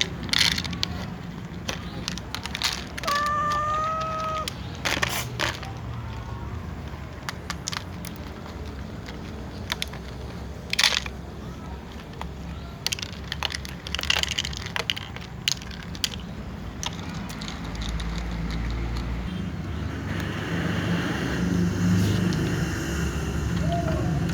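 Domestic cat meowing once, a short slightly rising call about three seconds in, among scattered sharp clicks and crackling knocks; another meow begins at the very end.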